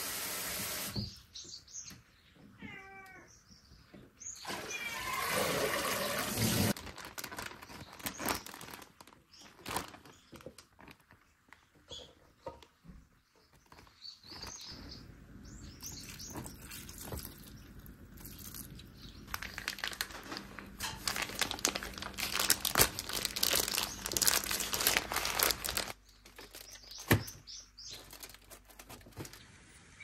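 Kitchen work sounds: scattered knocks and clicks and the crinkle of a plastic zip-top bag being handled, with a few short meow-like calls in the first seconds.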